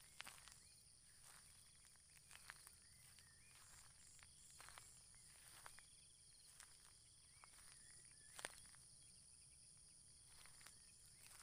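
Faint rural outdoor ambience: a steady high-pitched insect chorus with a pulsing trill, a few short bird chirps, and scattered small clicks and taps.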